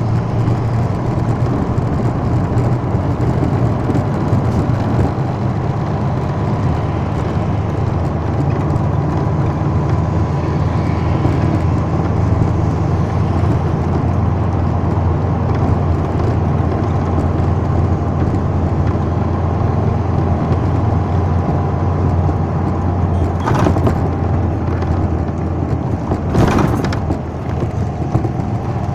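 Steady engine drone and road noise heard from inside a moving vehicle, deep and constant, with a faint steady whine above it. Two short noisy bursts come about 23 and 26 seconds in.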